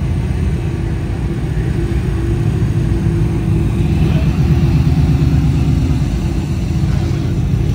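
A Ford Mustang's engine rumbling as the car rolls slowly past at low speed, getting louder about halfway through as it comes closest.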